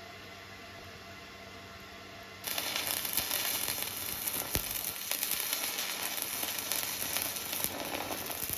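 Electric arc welding on a stove boiler: a steady crackling sizzle strikes up about two and a half seconds in and runs on, well above the low hum before it.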